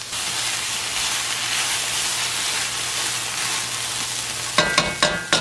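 Diced green pepper, red onion and celery sautéing in olive oil in a heavy enamel pan: a steady sizzle. Near the end a spatula knocks and scrapes against the pan a few times.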